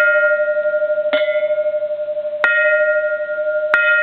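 Bronze Japanese Buddhist temple bell struck three times, about 1.3 seconds apart. Each strike gives a bright clang that settles into a long, steady ringing tone, and the tone carries on unbroken between strikes.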